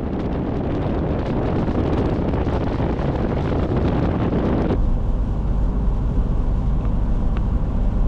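A vehicle driving, with wind buffeting the microphone over road and engine noise. About four and a half seconds in, the sound cuts to a steadier low road rumble.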